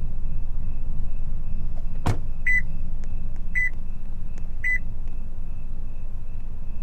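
Simulated Subaru Impreza engine sound from an RC car's sound module, idling as a steady low rumble. About two seconds in there is a sharp click, then three short high beeps about a second apart.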